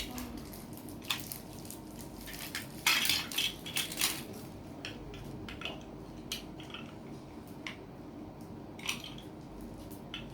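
Small hard plastic Lego pieces clicking and clattering as they are handled and sorted, with a brief flurry of louder rattling about three seconds in.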